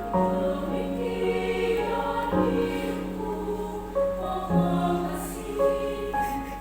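Church choir singing in sustained, slowly changing chords.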